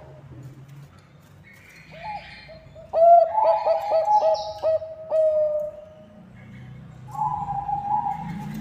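Bangkok-strain zebra dove cooing: about three seconds in, a rapid run of short clipped coo notes that ends on a drawn-out note, then another long coo near the end.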